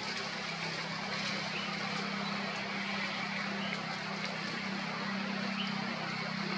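Steady outdoor background: an even hiss with a constant low, engine-like hum underneath and a few faint short chirps.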